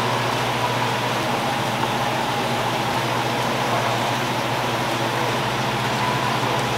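Steady low hum and hiss of room ventilation, unchanging throughout.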